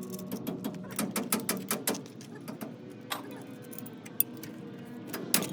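A rapid, irregular series of sharp clicks and taps over background music.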